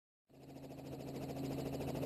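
Robinson R44 helicopter running, a steady hum with a fast, even pulse, cutting in about a third of a second in and swelling to full level over the next second or so.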